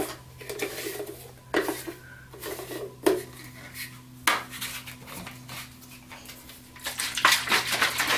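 Plastic shaker bottle being handled while mixing a powdered amino drink with water: a few sharp plastic clicks as the lid is screwed and snapped shut, then a quick run of rattling knocks near the end as the bottle is shaken.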